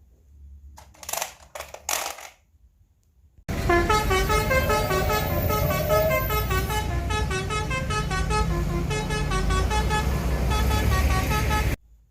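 A few handling clicks, then a battery-powered toy bus's electronic sound module plays a tune of quick stepped beeping notes for about eight seconds before cutting off.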